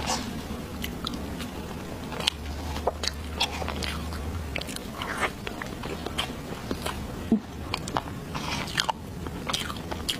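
Close-miked eating sounds as a soft chocolate mousse cake is chewed: many short, sharp, wet mouth clicks, with the spoon scooping into the cake.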